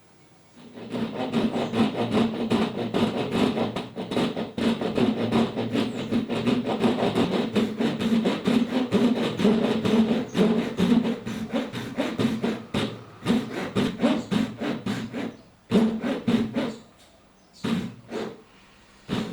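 A hand tool working pine wood in rapid back-and-forth strokes. Near the end the strokes stop, and a few separate knocks follow.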